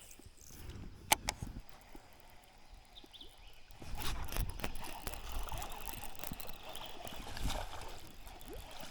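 Water splashing and trickling at a small fishing boat, with two sharp clicks about a second in and a steadier wash of water from about four seconds.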